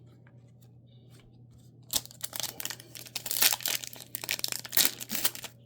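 A trading card pack's wrapper being torn open and crinkled in the hands. It starts about two seconds in as a dense run of sharp crackles after a quiet start.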